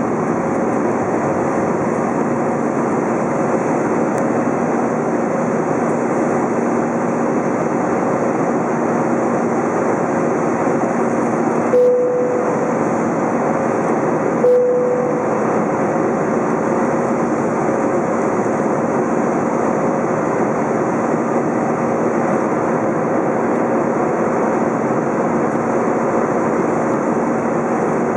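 Airbus A320 cabin noise heard from a window seat over the wing: a steady roar of jet engines and airflow with two steady hums, one low and one higher. About twelve seconds in, and again two and a half seconds later, there is a brief click with a short tone.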